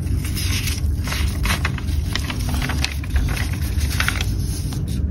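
Sheet of paper rustling and crackling in short irregular bursts as a folded notice is handled and opened, over a steady low rumble.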